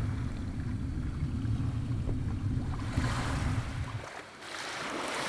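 Underwater water noise: a low rumble that stops abruptly about four seconds in, overlapped and followed by a rising hissing rush of water.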